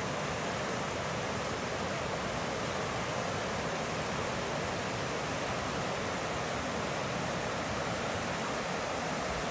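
Steady rushing of fast-flowing water, an even hiss that does not change.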